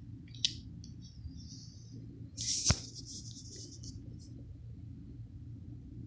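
Metal folding knife with a built-in flashlight being worked by hand: a small click about half a second in, light rattling, then a rattling scrape that ends in a loud sharp snap near the middle.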